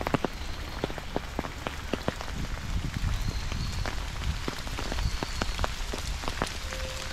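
Steady rain, with many irregular sharp ticks of raindrops hitting an umbrella held overhead and a low rumble underneath.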